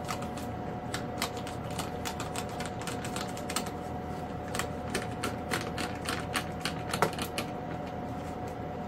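Small hand screwdriver turning screws into the foam jet's tail fin, making irregular light clicks and ticks, over a steady background hum.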